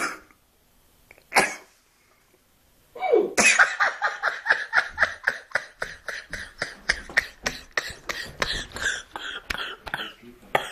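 A sleeping drunk man hiccuping: two sharp, short hiccups about a second and a half apart. From about three seconds in comes a long run of rapid short bursts, about four a second, that carries on to near the end.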